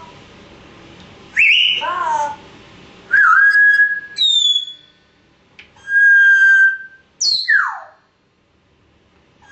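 African grey parrot whistling a string of clear notes. Some are held steady, and one glides steeply down in pitch near the end.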